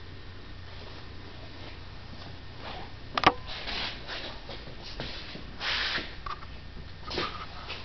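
Handling and movement noises from someone walking with the camera: one sharp click about three seconds in, then a few short scuffs and rustles, over a steady low hum.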